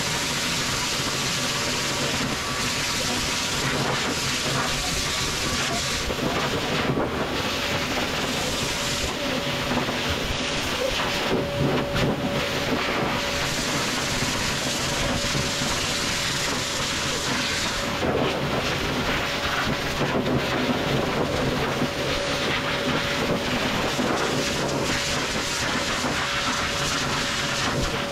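Hose-type pet blow dryer running steadily on a puppy's wet coat: a constant rush of air with a faint steady whine.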